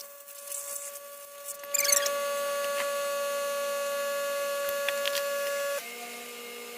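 A small handheld power tool's electric motor whines steadily at a high pitch while dust is cleared from the air compressor's motor. Near the end it drops suddenly to a lower speed and pitch.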